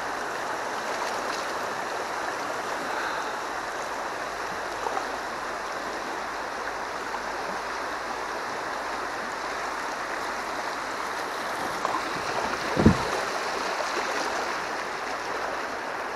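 River water rushing over shallow rapids around a kayak, a steady hiss of moving water. A single knock sounds about thirteen seconds in.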